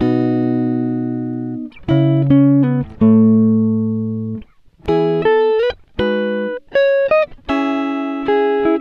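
Background music: a plucked guitar playing chords and short runs of notes, each struck and left to ring and fade.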